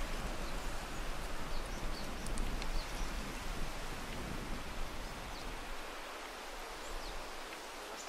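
Wind blowing over the microphone: a low rumble under a steady hiss, the rumble easing off about six seconds in. A few faint, short high ticks sound through it.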